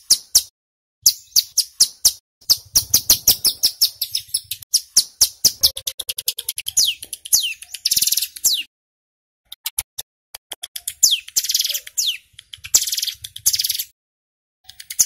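A male ciblek gunung (a prinia) singing its fast, rapid-fire high 'ngebren' song: long runs of sharp chips, several a second, with downward-sweeping notes mixed in. The runs come in bursts with short pauses between them, the longest about nine seconds in and again near the end.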